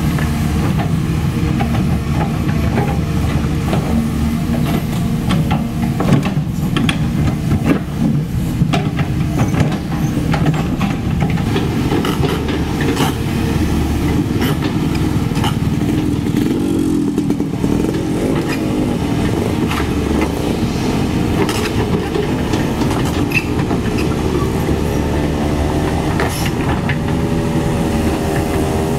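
CAT 320D2 hydraulic excavator's diesel engine running under load while the bucket digs up worn asphalt, with frequent clanks and scrapes of steel on broken asphalt and rubble. A small motor scooter passes by about halfway through, and near the end the excavator's engine and hydraulics rise in pitch.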